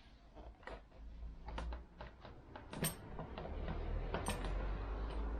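Scattered sharp clicks and knocks of hand tools and parts being handled while the air filter box is taken off a motorcycle, with a rustling, scraping noise building in the second half.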